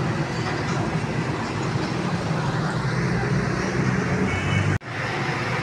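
Busy road traffic: trucks, motorcycles and motor-rickshaws passing with a steady low engine hum. The sound drops out abruptly for a moment about five seconds in.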